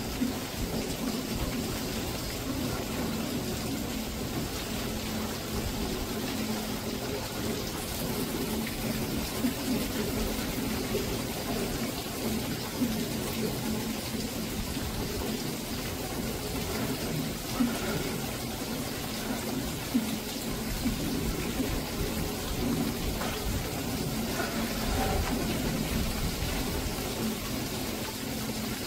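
Monsoon thunderstorm rain and gusting wind: a steady, even rush, broken by a few sharp taps.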